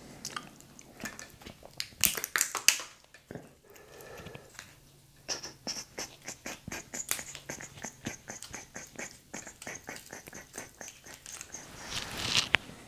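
Lobster meat being pulled apart and picked by hand, close to the microphone: a dense run of small wet clicks and crackles, with louder clusters about two seconds in and again near the end.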